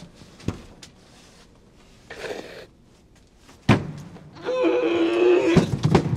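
A sharp thump a few seconds in, then a man's drawn-out anguished wail on one held pitch, lasting about a second, with a few knocks after it.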